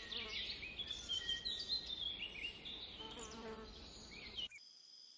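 Tufted capuchin monkey calling in a rapid run of high-pitched chirps and squeaks, some sliding up and down in pitch. The calls cut off suddenly near the end.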